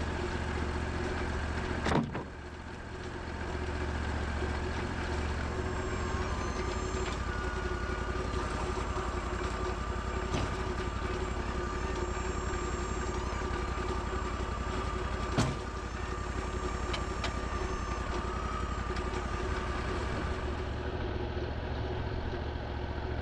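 Portable sawmill's engine running steadily, with a higher whine that comes and goes and a sharp knock about two seconds in and another midway.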